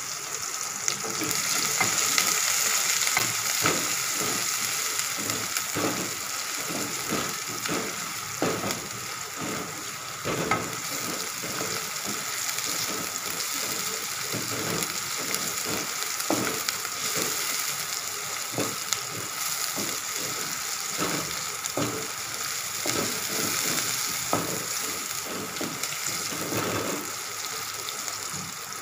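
Sliced onions sizzling in hot oil with cumin seeds and black pepper in a metal kadai, loudest in the first few seconds after they go in. A spatula stirs them, scraping and tapping against the pan at irregular intervals.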